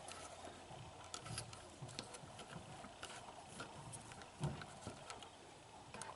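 Faint, scattered small clicks and light taps from hands handling the animatronic's plastic parts, with one louder knock about four and a half seconds in.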